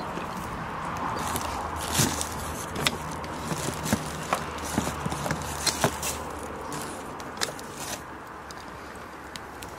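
Split firewood burning in a folding metal fire stand, crackling over a steady rushing hiss, with a cluster of sharp pops and snaps in the middle.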